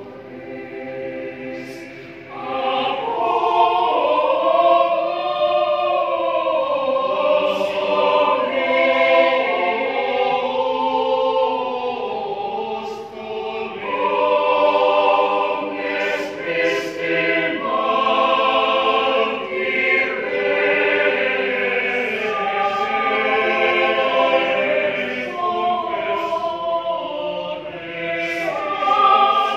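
Mixed choir of men's and women's voices singing a Catholic church song in parts; it sings softly for the first couple of seconds, then swells much louder.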